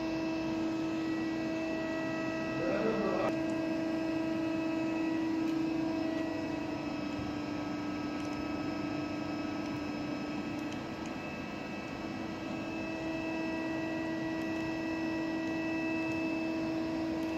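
Daewoo Puma 300 CNC lathe powered up and running, giving a steady machine hum with several constant whining tones.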